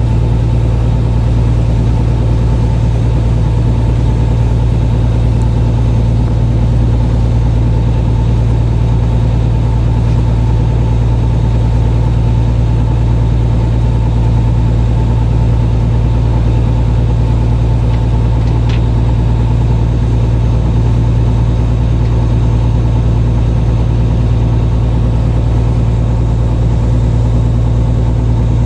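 Fishing boat's engine running steadily, a loud, even low hum that holds one pitch throughout.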